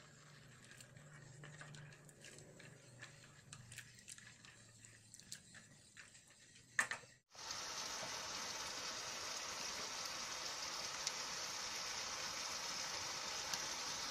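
Pot of water boiling with pasta in it. Light clicks of a steel spatula against the pot over a low hum; then, after a sharp click about seven seconds in, a steady, dense bubbling hiss of a rolling boil.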